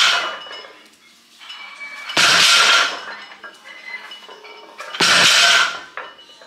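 Loaded barbell with Eleiko plates set down on the gym floor between sumo deadlift reps: a metallic clank with a short ringing tail, twice, about three seconds apart, after the tail of a third at the start.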